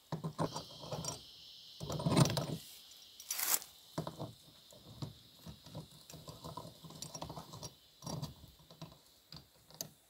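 Irregular clicks, rattles and scrapes as a fitting is handled and screwed by hand onto an RV's plastic city water inlet. The sounds are louder about two to three and a half seconds in.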